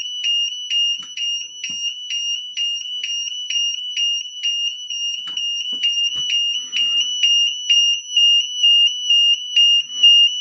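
Burglar alarm sound bomb, a high-output piezo sounder, going off inside a vented bell box. It gives a loud, steady high-pitched tone that pulses about twice a second. A few faint knocks come about five to six seconds in.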